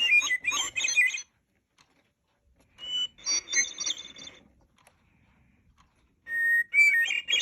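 Hermit thrush song played back by a Mark Feldstein & Associates National Audubon Society 100th anniversary singing bird clock as its eleven o'clock hour call. There are three flute-like phrases with pauses between them, each starting on a held whistled note at a different pitch and breaking into higher fluttering notes.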